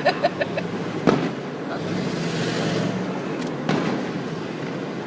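Fireworks shells bursting some distance away: a sharp bang about a second in, a rumble, and another bang with an echoing tail near four seconds.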